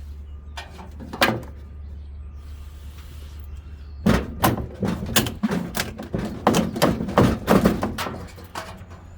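Clunks and knocks from a front-load washer's drum and tub being banged and wiggled to work the drum shaft free of its bearing: a single knock about a second in, then a rapid run of knocks from about four seconds in.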